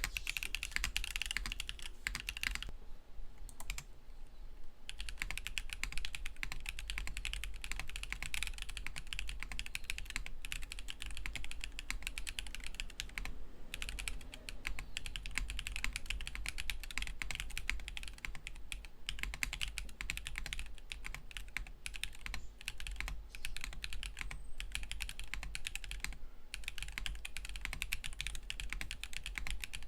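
Mechanical keyboard with Akko Botany switches being typed on in a fast, steady stream of keystrokes, pausing briefly a few times.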